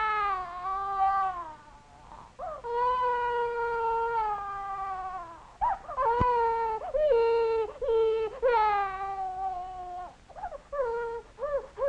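Baby crying: long drawn-out wails at first, breaking into shorter, sobbing cries from about halfway through.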